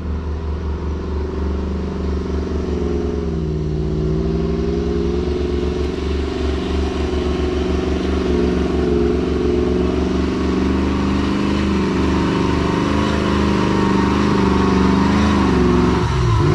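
Jeep engine running at low revs while crawling along a tight trail, its pitch rising and dipping a little now and then and growing gradually louder.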